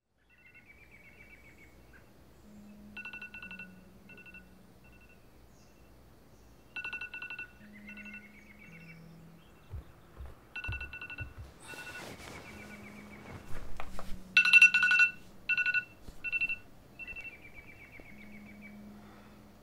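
Electronic phone ringtone or alarm tune repeating: groups of trilled high beeps and a short rising chirp over low held tones, the loudest beeps a little past two-thirds of the way through.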